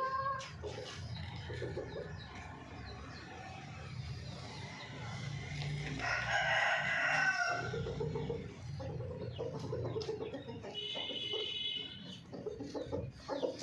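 Domestic chickens clucking, with one long crow about six seconds in and a shorter high-pitched call near eleven seconds.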